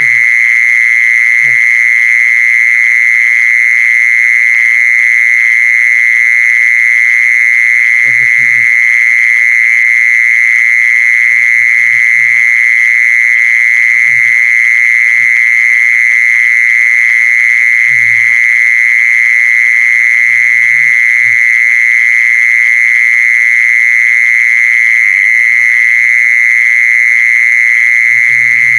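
Mole cricket singing one loud, unbroken, high-pitched trill. Short low calls break in every few seconds underneath it.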